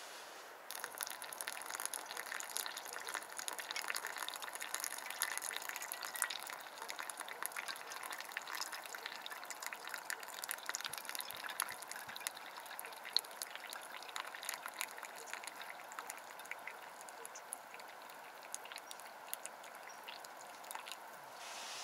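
Hot water poured in a thin stream from a small kettle into a pour-over coffee dripper, trickling and spattering onto the coffee grounds. It starts about a second in, runs steadily, and stops just before the end.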